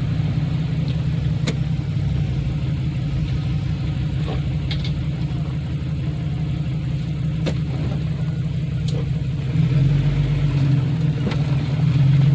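Jeep Cherokee XJ engine idling steadily, heard from inside the cab, with a few sharp clicks. The engine note rises about ten seconds in and again near the end as the Jeep pulls forward onto the trail.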